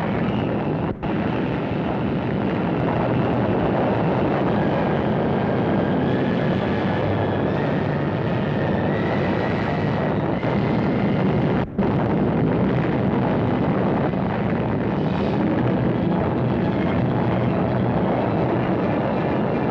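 Steady, loud rumbling roar of a newsreel soundtrack for an atomic bomb test blast, cut off briefly twice: once about a second in and once near twelve seconds.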